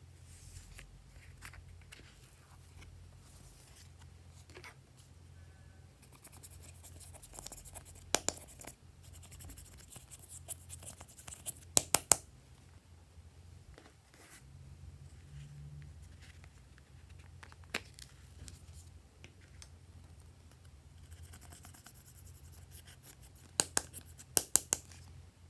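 A paintbrush scraping pressed eyeshadow out of a palette, with stretches of scratchy hiss as the powder crumbles. Several sharp clicks of the brush knocking against the palette cut in, the loudest about a third of the way in and near the end.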